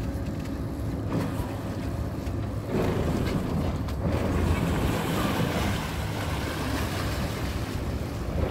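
Sportfishing boat's engine running steadily at low speed, with water rushing past the hull and wind on the microphone; the noise grows a little louder about three seconds in.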